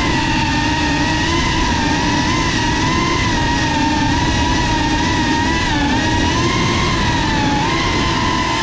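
FPV racing quadcopter's brushless motors and propellers whining steadily on board, the pitch wobbling slightly with small throttle changes, over a rough rush of prop wash.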